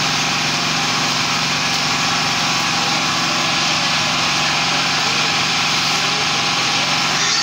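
Loud, steady drone of a running engine, unchanging in pitch and level.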